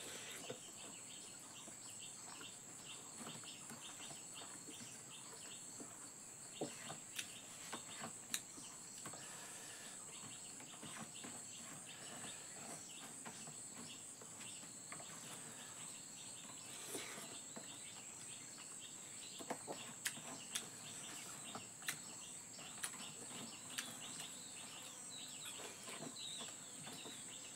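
Steady high-pitched insect drone, with faint repeating chirps, and occasional soft clicks and rustles of food being eaten by hand off a banana leaf.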